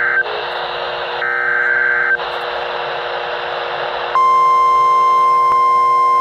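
NOAA Weather Radio alert received through radio static: the warbling digital bursts of the SAME data header, about a second long each, then about four seconds in the steady single-pitch warning alarm tone begins and holds, announcing a National Weather Service warning.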